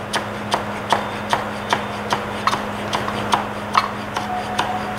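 Chef's knife chopping spring onions on a wooden cutting board: a steady rhythm of sharp taps, about two and a half a second, as the blade strikes the board.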